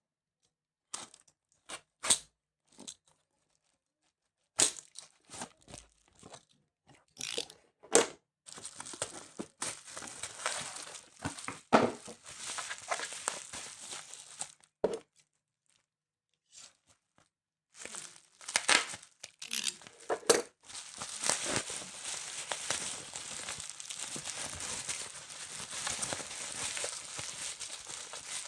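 Packaging being opened and handled by hand: a few sharp clicks and snaps, then long stretches of crinkling and tearing, with a pause of a few seconds in between.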